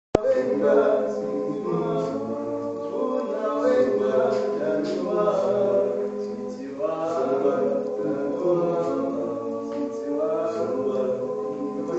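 A choir singing a cappella in several-part harmony, holding long chords in swelling phrases. It starts abruptly with a click just after the beginning.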